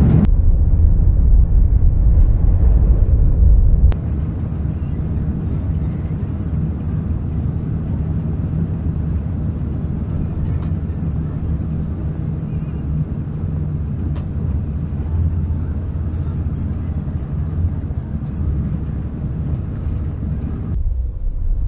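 Steady low drone of a vehicle's engine and tyres on the road, heard from inside the cab. The level drops at a cut about four seconds in, then the drone carries on evenly.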